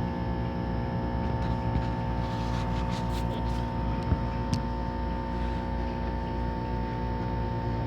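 Steady engine drone with an even, unchanging hum, and a couple of faint clicks about four seconds in.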